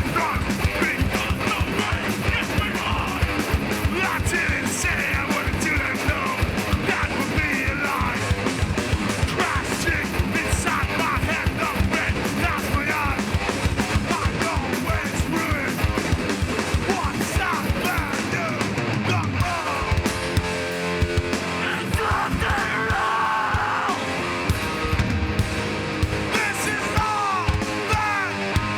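A hardcore band playing live and loud: distorted guitars over fast, heavy drumming. The drumming thins out about two-thirds of the way through, leaving clearer guitar lines.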